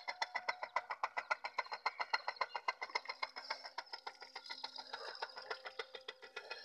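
A battery-powered 12-volt DC motor driving a water pump through a belt, running with a rapid, even clatter of about seven or eight beats a second.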